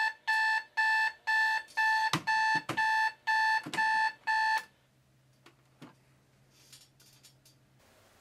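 Digital alarm clock's alarm beeping, about two beeps a second, with a few knocks as a hand slaps down on the clock. The beeping cuts off suddenly about four and a half seconds in, when the alarm is shut off.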